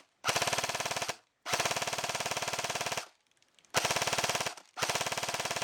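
Airsoft gun firing on full auto in four short bursts of rapid, evenly spaced shots, with brief pauses between them. It is shooting .25 g tracer BBs through a J-Mag tracer unit.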